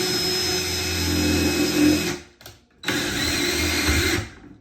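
Cordless power drill running with a bit through a cabinet door to make a handle hole: one steady run, a brief stop, then a second shorter run.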